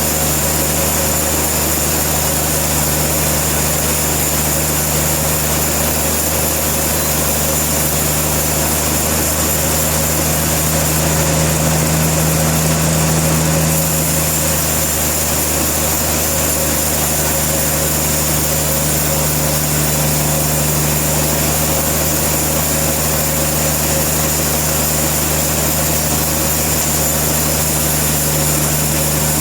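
A sawmill's engine running steadily with a droning hum and a thin high whine, swelling slightly about eleven seconds in.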